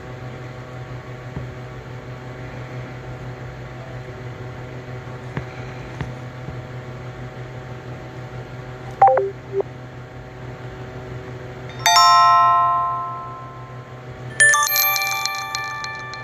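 Ringtone sounds from a TCL A1 phone over a steady low hum. About nine seconds in there are a few quick falling notes. A bright bell-like chime rings out at about twelve seconds, and a second, fuller chime chord follows about two seconds later, each fading away.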